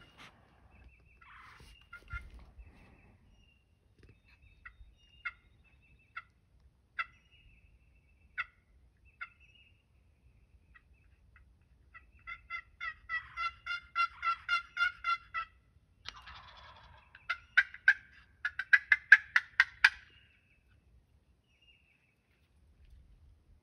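Wild turkey calling: scattered single clucks, then a run of about a dozen evenly spaced yelps, then a faster, louder rattling gobble near the end.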